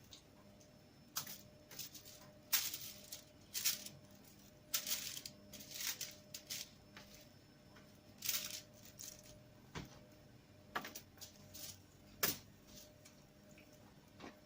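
Irregular soft rustles, squelches and light taps from hands handling and placing seasoned chicken wings on an oiled baking tray, over a faint steady hum.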